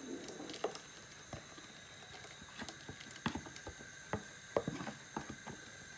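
Blended peanut mixture being emptied from a plastic blender jug into a steel pot of water: irregular light taps and plops as the thick mixture drops in and the jug is shaken against the pot.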